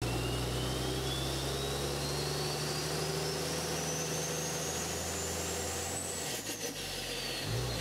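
Engine running steadily under a thin high whine that rises for about six seconds and then falls away. The engine drone stops just after six seconds, and a low thump follows near the end.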